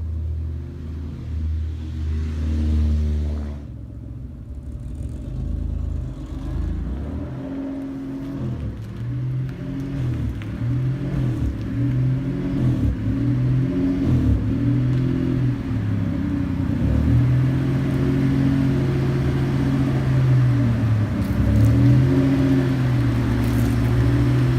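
Mitsubishi 3000GT SL's V6 engine and exhaust while driving, the engine note rising and falling with the throttle and growing louder and steadier from about ten seconds in. The downpipe has just been patched with exhaust wrap, and a small leak remains at the front.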